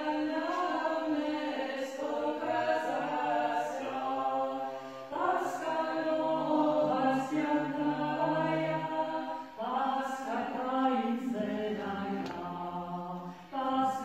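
Unaccompanied Byzantine-rite chant sung by a small group, women's voices with a lower man's voice, in long held phrases broken by brief pauses about five, ten and thirteen seconds in.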